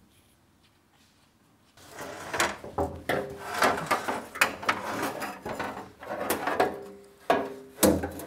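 Metal car fuel tank being shifted and pushed up into place under the car body, clunking and scraping against the floor pan and its mounting straps. Near quiet for the first couple of seconds, then a steady run of knocks and scrapes, with a loud clunk near the end.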